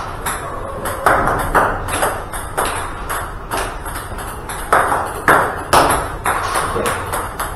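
Table tennis ball dropped and struck with backhand topspin strokes, one ball after another: a quick, irregular run of sharp clicks as the ball bounces on the table and the bat hits it.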